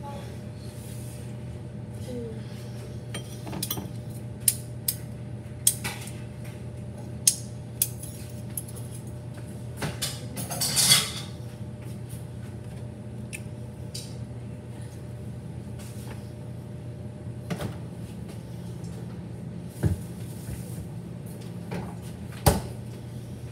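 Kitchen clatter: dishes and utensils clinking and knocking in sharp, separate strikes every second or two, with a short scraping clatter about eleven seconds in, over a steady low hum.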